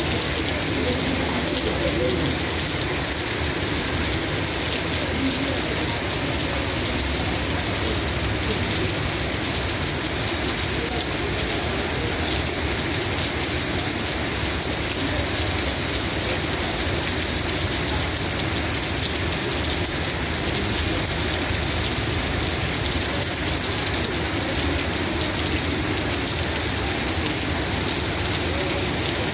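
Heavy rain falling steadily on tiled pavement, an even, unbroken downpour.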